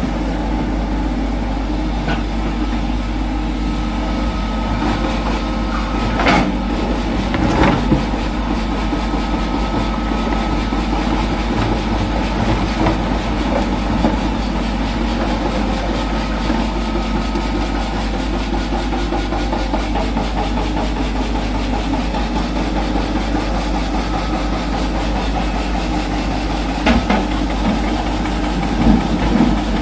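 Hydraulic excavator's diesel engine running steadily as it digs and loads broken rock, with a few sharp clanks of rock against steel: a pair about a quarter of the way in and another pair near the end.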